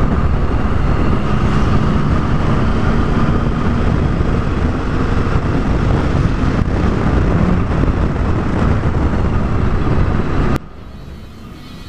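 Triumph Tiger 1050's three-cylinder engine running steadily at road speed under loud wind noise on the microphone. About ten and a half seconds in, the sound cuts off suddenly and quieter background music takes over.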